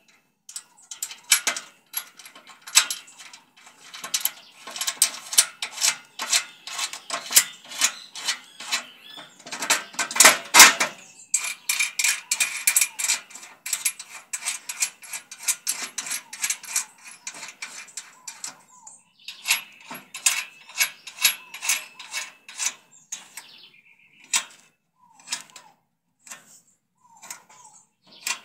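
Steel nuts and washers clicking and rattling as they are spun by hand onto threaded bolts: a rapid run of small metallic ticks, densest and loudest in the first two-thirds, then sparser near the end.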